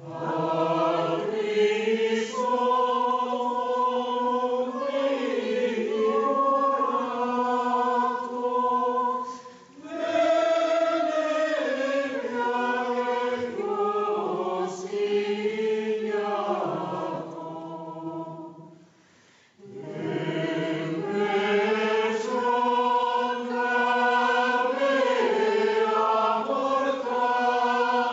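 Mixed choir of men's and women's voices singing a cappella in sustained chords. The singing falls into three long phrases, with brief pauses about ten and twenty seconds in.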